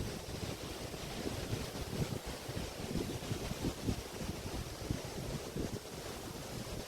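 Waves washing onto the shore of the Río de la Plata estuary, with wind buffeting the microphone in a steady, gusty low rumble.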